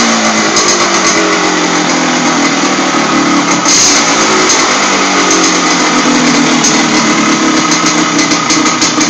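Yamaha RD 135 two-stroke twin, trail-prepped with a short tuned exhaust, running steadily. Its pitch sags a little in the first second, then wavers slightly, with one brief sharper burst about four seconds in.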